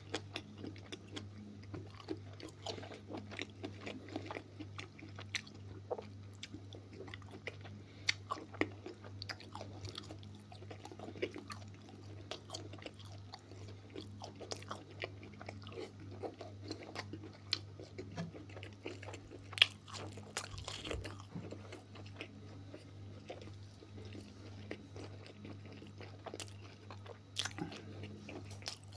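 Close-miked chewing and wet mouth sounds of a man eating stewed beef offal, with small clicks of a metal spoon scooping from the plate, over a steady low hum.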